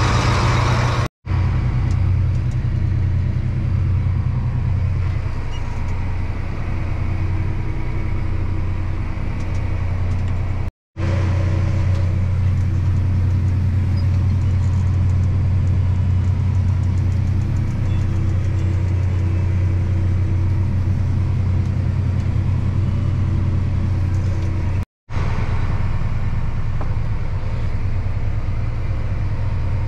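Diesel engine of a large farm harvest machine running steadily under load, a deep even hum, cut off by brief silences three times.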